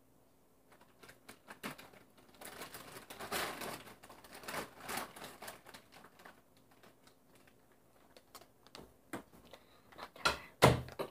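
Off-camera handling noise: a run of sharp clicks and crinkling rustles, with a loud knock about ten and a half seconds in.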